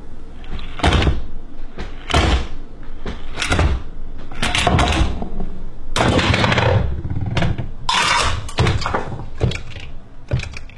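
Parts of a homemade chain-reaction machine knocking, clattering and sliding as it runs: a string of separate sharp knocks about a second apart, then longer stretches of rattling clatter.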